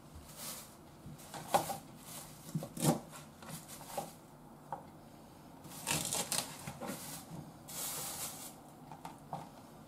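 Kitchen knife knocking and tapping on a plastic cutting board: a scatter of sharp single knocks, the loudest about a second and a half in and about three seconds in. Rustling about six seconds in and again about eight seconds in, as a long green onion is handled on the board.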